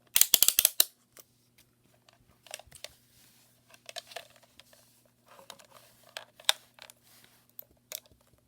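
A quick run of about eight sharp clicks, the detents of a multimeter's rotary dial being turned to the ohms range. Then scattered lighter clicks, taps and handling noises as the meter and its test leads are worked.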